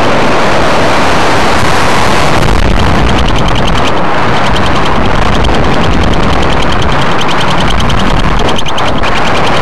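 Wind rushing over the microphone of a model rocket's onboard camera as it descends under its parachute: a loud, steady rush with low buffeting. From about two and a half seconds in, a fast, even rattle joins it.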